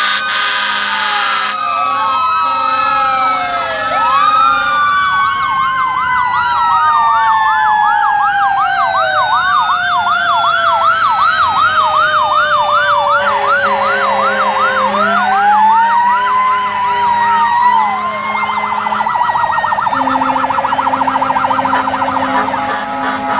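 Several fire engine and emergency vehicle sirens sounding at once: slow rising and falling wails overlap a fast yelp through the middle and a rapid warble near the end. A low steady tone joins about halfway through.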